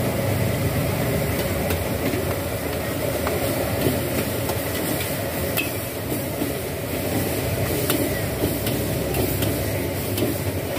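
High-pressure gas wok burner running steadily, while a metal ladle and spatula scrape and clink against the wok as leafy greens are tossed, giving scattered sharp clinks.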